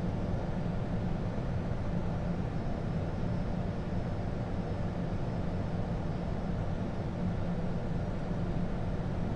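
Steady flight-deck noise of an Airbus A220 on final approach, gear down and landing flaps set: a constant low rumble of airflow and engines.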